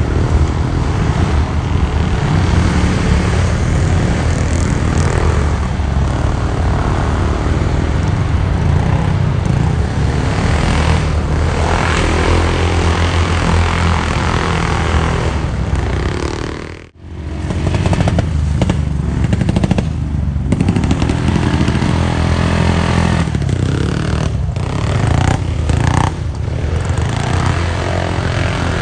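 Several grasstrack racing motorcycles running on a dirt circuit, a steady loud drone of engines. The sound dips out abruptly for a moment about two-thirds of the way through, then picks up again.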